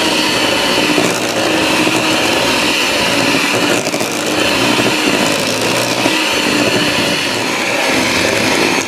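Electric hand mixer running steadily, its beaters churning stiff, crumbly shortbread dough in a stainless steel bowl as the flour is worked in. The sound dips briefly about four seconds in.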